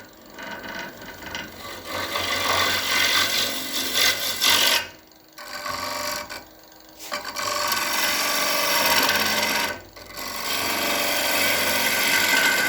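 A tool working a spinning ash blank on a Powermatic PM2014 wood lathe, making a scraping hiss. The hiss breaks off briefly three times as the tool comes off the wood.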